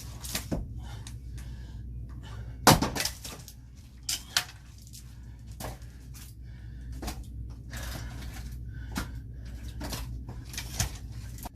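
Axe chopping a very hard log of firewood: one loud sharp chop about three seconds in, two lighter knocks a second later, and scattered small knocks and clicks of wood after.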